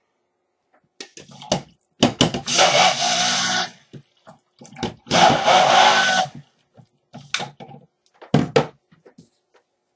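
Stick blender run in two short bursts of about a second and a half each in liquid soap batter, a whirring with a wet swish, among a few knocks of containers and utensils.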